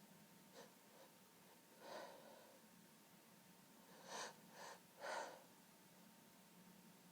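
Faint stifled sneezing from allergies: a breathy build-up about two seconds in, then three quick muffled sneezes in a row a little past the middle.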